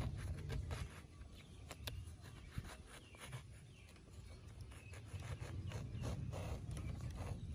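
Kitchen knife blade scraping the skin of a ridged luffa gourd in a series of short, irregular scrapes.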